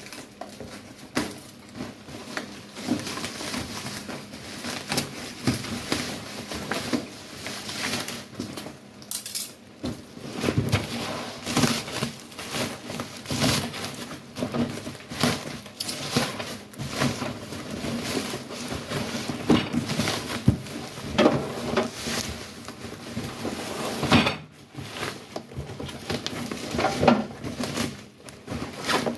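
Irregular knocking, clanking and rustling as a metal sink and its packaging are handled and moved about.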